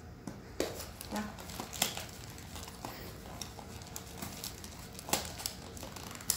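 Hands working at a smartphone's retail box packaging that is hard to open: scattered clicks, taps and crinkling, with a few sharper snaps.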